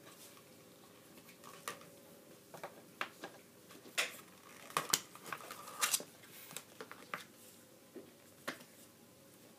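Hard plastic toy figures handled on a tabletop: irregular light clicks and knocks as the rider figure and armor saddle are taken off a Panthor figure and it is set down. The handling is busiest in the middle.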